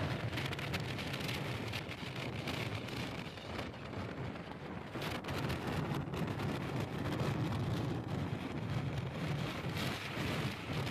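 Steady wind rush buffeting the microphone of a camera moving along a road, with a low rumble of vehicle and road noise underneath.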